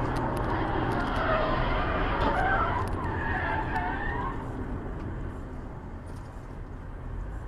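Steady road and engine noise heard from inside a car at highway speed, with wavering, squealing tones between about one and four seconds in, typical of tyres skidding.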